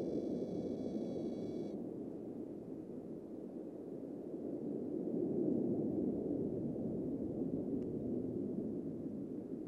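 Blue Angels F/A-18 Super Hornet jet engines heard as a low, dull rumble, fading a little and then swelling again as the jet climbs and rolls. A thin, high, steady tone sounds during the first second or two.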